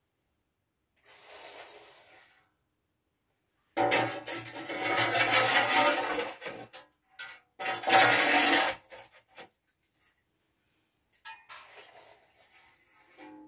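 Long-handled metal scoop scraping inside a brick stove's lower opening and clanking against an enamel basin, in two loud scraping spells with a softer one near the end.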